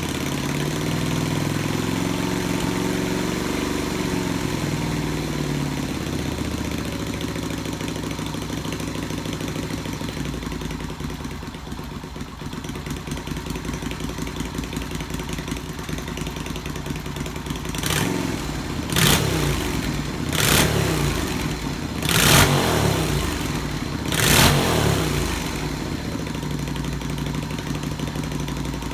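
Yamaha XV250 Virago's air-cooled V-twin running through open drag pipes, idling steadily after an engine start, then blipped five times in quick succession in the second half.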